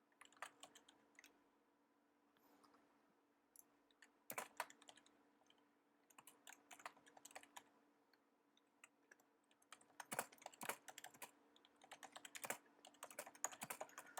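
Faint typing on a computer keyboard: scattered keystrokes with pauses, then a quicker run of keys in the last few seconds.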